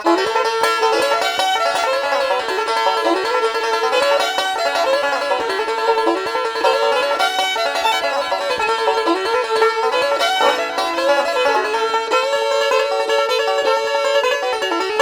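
Background music: a plucked-string tune in a bluegrass style.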